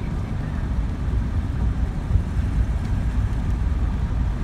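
Road and engine noise heard inside a moving car's cabin at highway speed: a steady low rumble.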